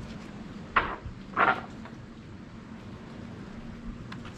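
Two short knocks about half a second apart, the second a little longer, over a steady low hum.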